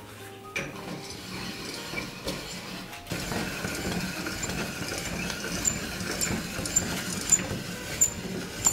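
Hand-cranked stainless-steel pasta machine being turned, its rollers and gears rattling with a run of small clicks as stiff ramen dough is pressed and then cut into noodle strands. The sound gets fuller about three seconds in.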